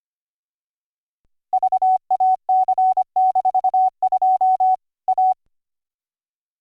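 Computer-generated Morse code from a software CW keyboard: a single steady tone keyed on and off in quick dots and dashes, starting about a second and a half in and stopping after about four seconds.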